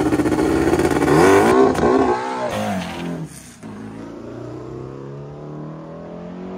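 Turbocharged Volkswagen Beetle drag car's engine launching off the line: a loud, steady hold for about a second, then the pitch climbs in several quick rises, and it fades sharply about three seconds in as the car pulls away down the strip.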